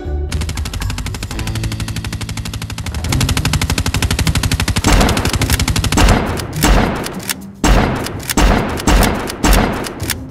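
Rapid gunfire sounds for a Nerf blaster fight: a fast, even stream of shots, then from about six seconds in a run of heavy single blasts about twice a second, each ringing out.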